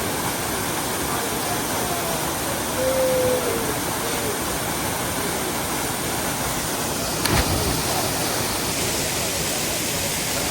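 Steady rushing roar of a waterfall, with faint voices rising briefly around three seconds in and one sharp thump about seven seconds in.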